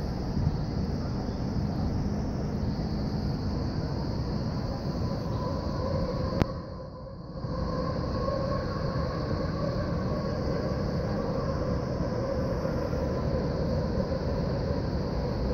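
Steady distant rumble of city and rail traffic heard from high above, with a faint steady hum. A sharp click about six seconds in is followed by a brief drop in the sound before the rumble returns.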